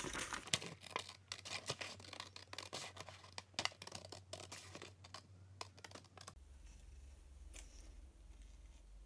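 Scissors snipping through a paper sewing pattern, trimming a thin strip off the edge in a run of quick cuts that stops about six seconds in.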